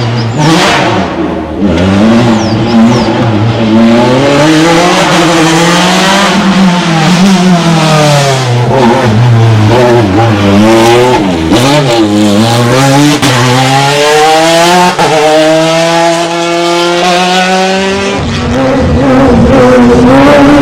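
Racing car engine driven hard through a slalom, the revs climbing under acceleration and falling away on lifts and gear changes again and again, with a marked drop in revs near the end.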